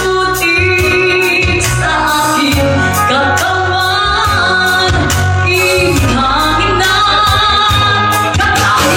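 A woman singing a Tagalog pop ballad into a microphone over a karaoke backing track with a steady drum beat, her voice amplified through the room's speakers.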